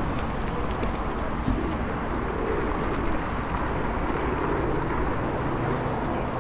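Pigeons cooing over a steady rush of background noise.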